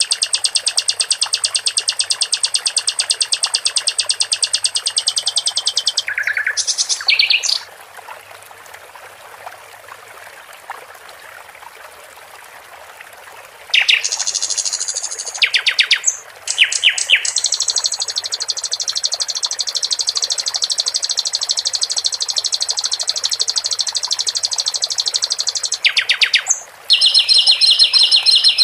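A sikatan londo songbird singing long runs of rapid, high, repeated trill notes, with a pause of several seconds partway through. Steady trickling water runs underneath.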